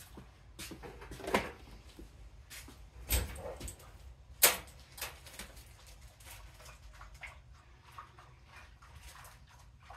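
Scattered knocks and clicks, the loudest a sharp knock about four and a half seconds in, with two smaller thumps before it.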